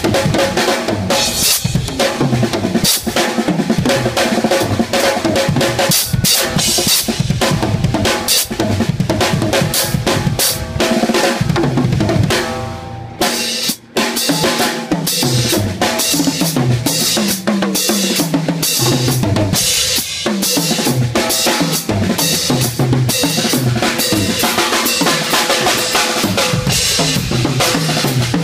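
Drum kit solo: dense, fast strokes on snare, toms and bass drum with cymbals, played without letup. About halfway through the playing dies away and stops for a moment, then starts again.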